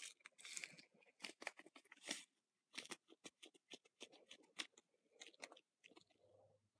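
Faint crinkling and crackling of a small plastic packet of bouncy-ball crystal powder being squeezed out into a round plastic ball mold, a quick irregular run of short crackles.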